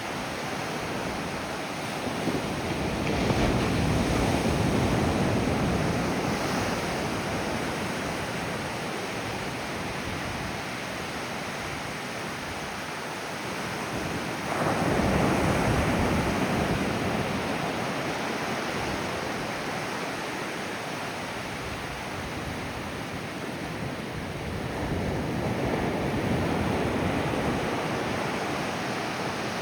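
Ocean surf: waves breaking and washing in as a steady rush that swells three times, the loudest surge coming in suddenly about halfway through.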